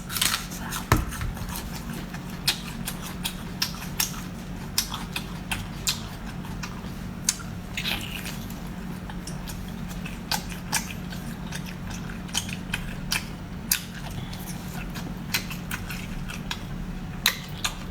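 Close-up crunching and chewing of raw Chinese scallion (green onion): many crisp, irregular bites and chews over a steady low hum.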